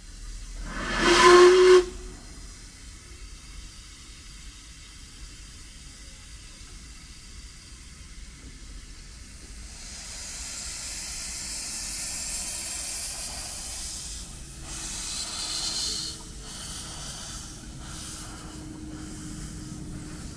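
A miniature steam locomotive's whistle gives one short blast near the start. Later a steady hiss of escaping steam builds and then cuts off suddenly.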